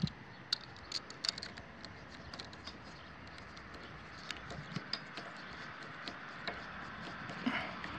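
Scattered light clicks and ticks from a nut driver tightening the screw of a worm-gear hose clamp on a small engine's fuel line. The clicks are thickest in the first second or so and sparser after.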